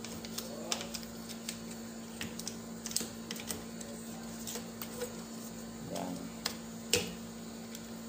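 Irregular light clicks and rattles of a hard plastic microwave part being handled and fitted, the sharpest click about seven seconds in, over a steady low hum.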